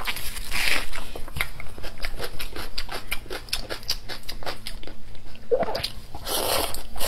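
Close-miked wet chewing and lip-smacking, with many quick mouth clicks, as a person eats braised pork knuckle and sweet potato. About five and a half seconds in comes a louder, noisier bite and suck into the meat.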